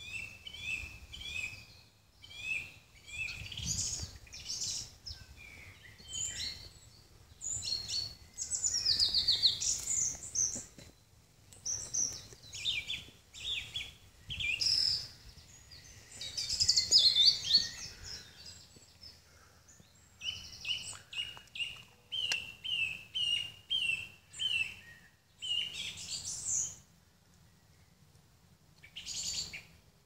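Songbirds singing: a varied run of high chirps, fast trills and quick descending note series, with a steady series of repeated notes about two a second in the second half.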